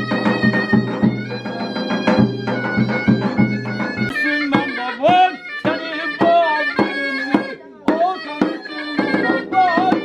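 Traditional folk music: a reedy wind instrument with a drone plays a tune over regular strokes of a davul, a large drum beaten with a stick. About four seconds in the drone drops out and the melody bends up and down, and the drone comes back near the end.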